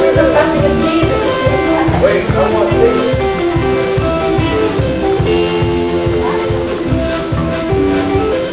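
A live band playing: guitar over a steady beat.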